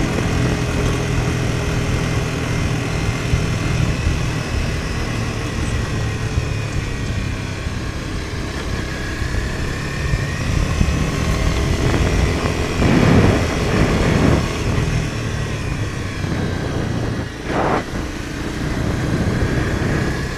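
Car driving along a dirt road: steady engine and tyre rumble, with two louder rushes of noise about 13 and 17 seconds in.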